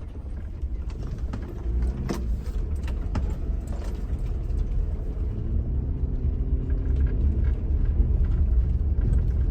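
Campervan driving on the road: a steady low engine and road rumble, with a few light knocks and rattles.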